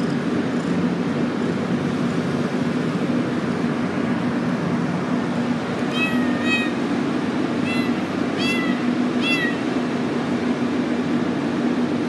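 A ginger kitten meowing: five short, high meows, a pair about six seconds in and three more over the next few seconds, over a steady background hum.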